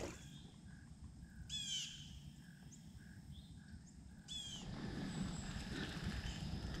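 A bird calling twice, a short falling call about a second and a half in and another about two seconds later, over quiet woodland background.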